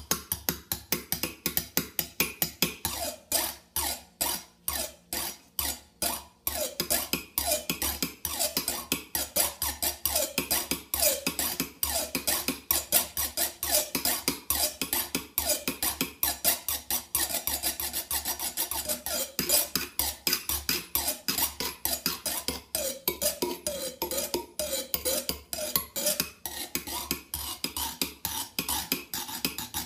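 Two kitchen knives tapped on a granite countertop as percussion, their blades and tips clicking on the stone in a fast, steady rhythm. The strokes thin out to about four a second for a few seconds near the start, then pick back up into a dense pattern.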